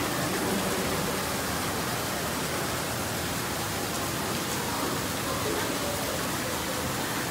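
Steady, even hiss with no clear tones or strikes.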